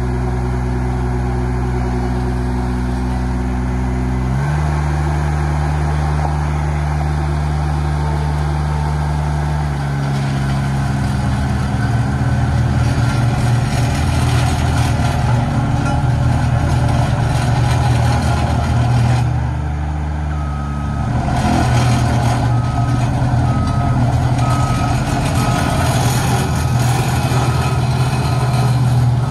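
Diesel engine of a CAT CB24 double drum roller running, revving up about four seconds in and running rougher from about ten seconds in as the roller is driven. From about twenty seconds in, its backup alarm beeps steadily, about once a second.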